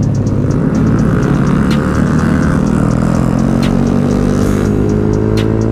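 Yamaha R15 V4's single-cylinder engine with an aftermarket exhaust, running under way with its revs climbing steadily through the second half as the bike accelerates.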